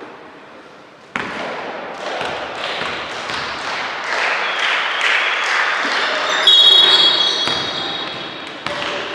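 Basketball game noise in a sports hall: the ball bouncing on the court and players moving and calling out, busier from about a second in. About six and a half seconds in, a loud high-pitched tone comes in and holds for a couple of seconds.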